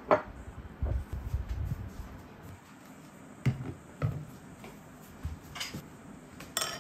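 Scattered sharp clicks and light knocks of things being handled, with a few soft low thuds early on and a short rustling burst near the end.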